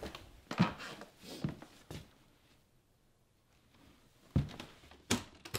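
Footsteps and a few dull knocks: three in the first two seconds, a quiet stretch, then two more near the end.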